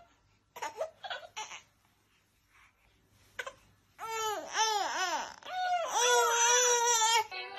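A baby squealing and laughing in short bursts: a few brief sounds about half a second in, then a run of rising-and-falling squeals and a longer held squeal in the second half.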